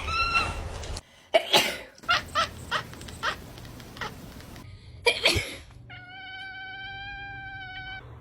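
House cat meowing: a short meow at the very start, then one long, steady meow of about two seconds near the end. Several sharp noisy bursts and a run of short clicks come in between.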